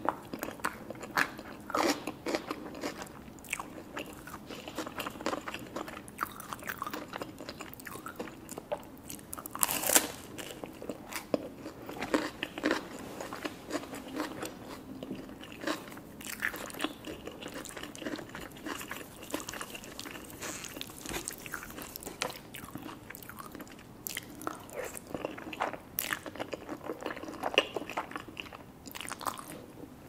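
A person eating, with irregular crisp crunches from biting and chewing toasted bruschetta bread mixed with chewing. The sharpest crunch comes about ten seconds in.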